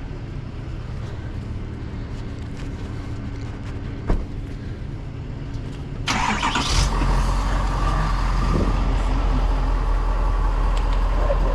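Vehicle engine idling steadily; about six seconds in an engine cranks and catches, and a louder, steady low idle runs on after it, with a single click a little before.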